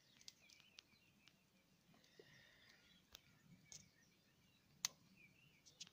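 Near silence: faint distant birdsong with a few soft clicks, one sharper click about five seconds in.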